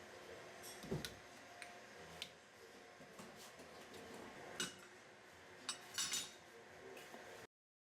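Faint, scattered clicks and small metallic clinks of an Allen key and screws being worked out of the pressure arm frame, a few separate taps with gaps between them, ending in silence near the end.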